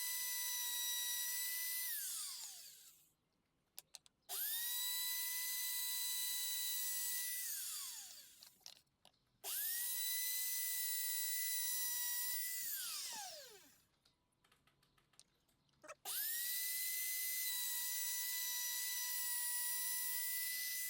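Router motor switched on and off in short runs, probably flush-trimming the overhanging edges of the wooden case. Each run rises quickly to a steady high whine, holds for about three seconds, then winds down with a falling pitch. It stops three times and starts again three times.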